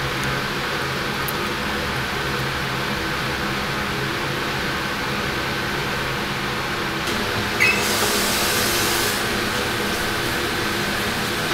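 Steady hum of a commercial kitchen's ventilation fan, with a few faint light ticks. About seven seconds in there is a brief high squeak, then a short hiss lasting a couple of seconds.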